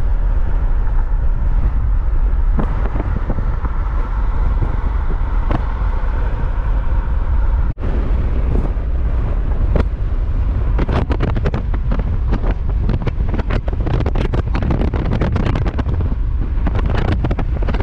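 Car on the move: a steady low rumble of road and engine noise, with wind buffeting the microphone. It cuts out briefly about eight seconds in, and a run of crackles comes through in the second half.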